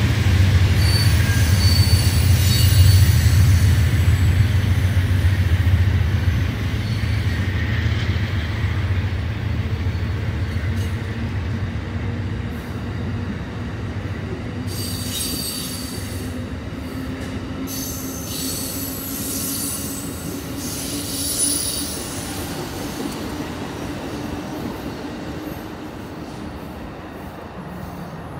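Amtrak Superliner passenger cars rolling slowly onto a siding, the wheel flanges squealing on and off, loudest in the second half. A low rumble is strongest at the start and fades as the train moves away.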